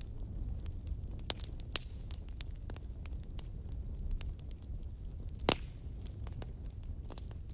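Steady low background rumble with scattered small clicks and crackles and one louder click about five and a half seconds in, as a handheld phone is moved over a paper sheet.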